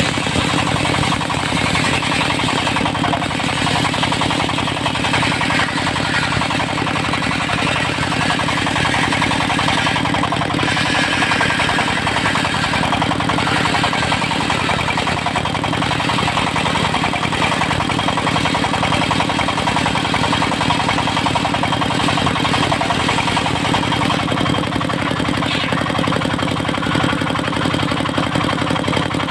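Diesel engine driving a portable circular-saw sawmill, running steadily, with a hiss over it that swells now and then.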